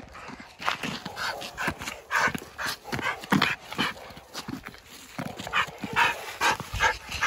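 Dogs barking: a quick, irregular run of short barks, two to three a second, with a short lull about four seconds in.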